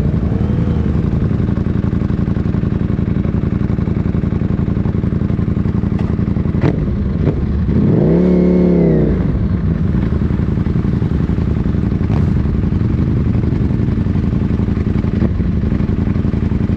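KTM 890 Duke R's parallel-twin engine idling steadily, with one quick throttle blip about eight seconds in that rises and falls in pitch.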